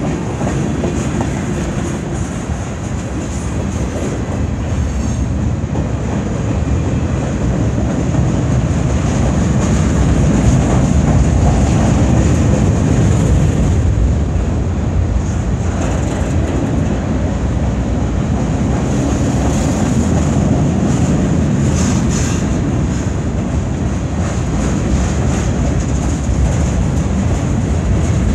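Freight train cars, tank cars and centerbeam flatcars, rolling past: a steady noise of steel wheels running on the rails, growing a little louder about a third of the way in.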